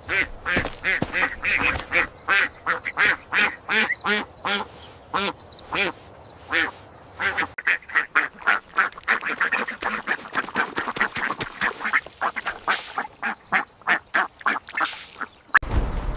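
A duck quacking over and over, a rapid series of short quacks two or three a second. Near the end the quacking stops abruptly and a low rumbling noise begins.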